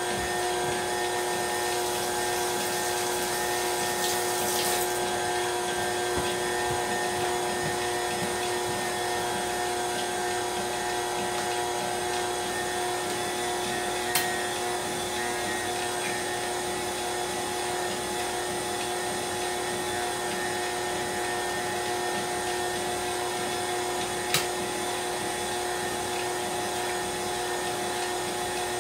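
KitchenAid stand mixer running at a steady speed, its motor giving a constant whine while it beats pound cake batter. Two short sharp taps stand out, one about halfway through and one near the end.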